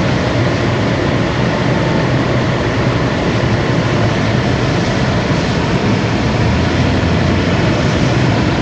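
Steady loud rush of hurricane wind and rain around a moving vehicle, with a low engine hum underneath.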